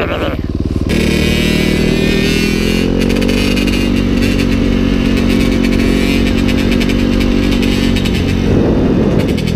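Dirt bike engine heard from on the bike while riding, holding steady revs. The pitch climbs a little about two seconds in, and the sound changes near the end as the throttle changes.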